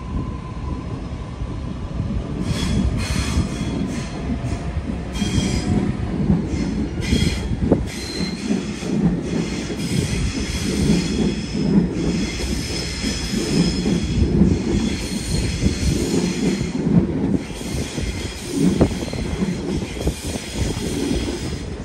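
Sydney Trains double-deck electric train running past over curved track and points, a steady low rumble with high-pitched wheel squeal that comes and goes again and again.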